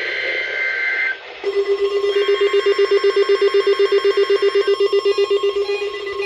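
NOAA Weather Radio test alert tones. A screeching two-tone digital data burst (the SAME header) cuts off about a second in. Then a low electronic tone pulses rapidly and evenly, with higher steady and warbling tones over it.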